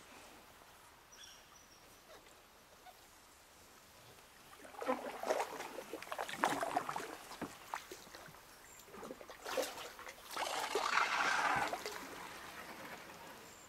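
Canoe paddle strokes in calm river water: two spells of splashing and dripping, the first about four and a half seconds in and the second a little before ten seconds in.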